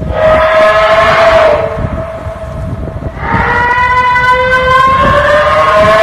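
A loud, drawn-out, siren-like howl with many overtones, coming in two swells; the second swell climbs slowly in pitch. This is the eerie 'mystery sound' that the uploader attributes to a blue whale off the coast.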